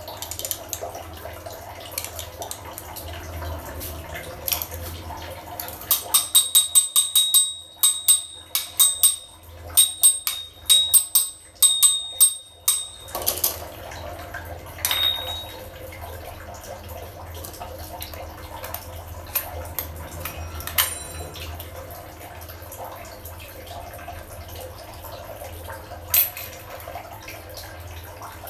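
Sharp metallic clicking and tapping as a chrome concealed-tap handle is worked off with a screwdriver: a quick run of ringing metal clicks for several seconds, then a few single clicks, over a steady low hum.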